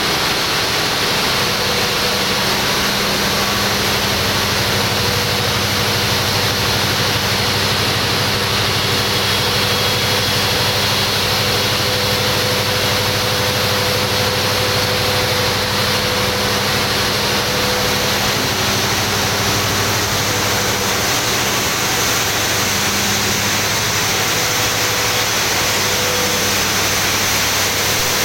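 A 3 MW Elliott Ebara steam turbine running at steady speed: a loud, even rushing of steam and machinery with a constant low hum underneath.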